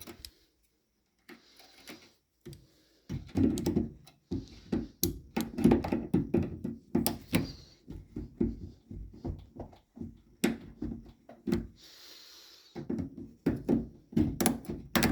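Hands and pliers working a hose off a washing machine's water inlet solenoid valve: irregular clicks, knocks and handling rattles, with a short quiet pause about a second in.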